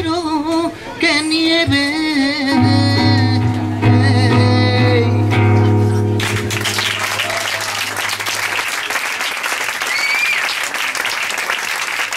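A live band's closing sung notes over the instruments, ending about six seconds in, followed by the audience applauding.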